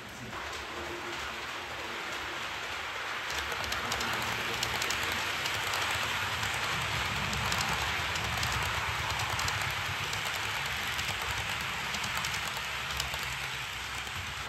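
HO-scale model train running on the layout: a steady rolling hiss of wheels on track over a low motor hum, getting louder about four seconds in.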